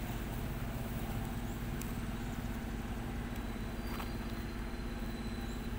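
Steady low hum of an idling engine, with a faint thin high whistle about four seconds in.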